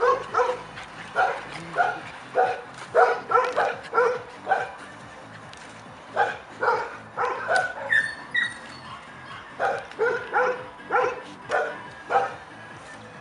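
Three-month-old Labrador retriever puppies barking in play: short, sharp barks in quick runs of several, with a brief lull about five seconds in.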